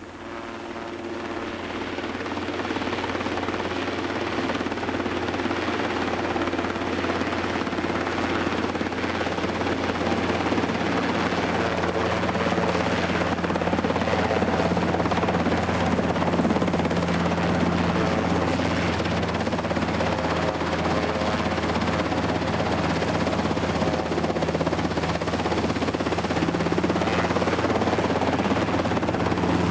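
Helicopter engine and rotor running steadily on the ground, a constant low hum and thrash. The sound rises in level over the first few seconds, then holds.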